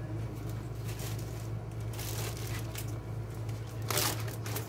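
Zip-top plastic bag crinkling as it is handled, in a few rustling bursts, the loudest near the end.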